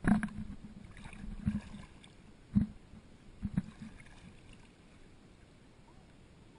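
Kayak paddling: the paddle splashing in the water and about four dull knocks on the plastic hull, the loudest at the start and about two and a half seconds in. Quieter after about four seconds.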